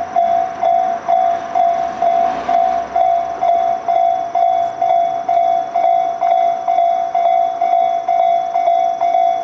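Japanese railway level-crossing alarm of the 'pon-pon' type, an electronic bell striking one mid-pitched tone about twice a second, steady and loud.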